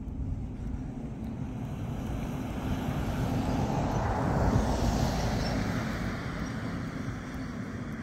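A vehicle passing, its noise swelling to a peak about halfway through and then fading, over wind buffeting the microphone.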